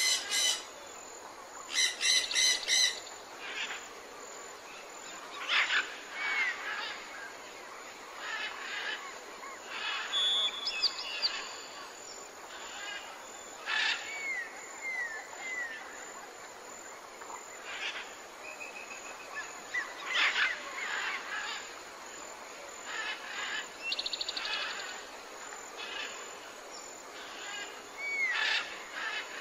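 Birds calling: scattered short chirps and brief whistled notes that curve up and down, with a harsher call repeated in quick pulses about two seconds in.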